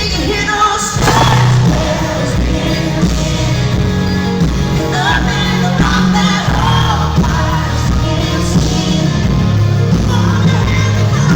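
Live arena performance of a country-pop song: full amplified band playing with a female lead vocal over a steady bass line.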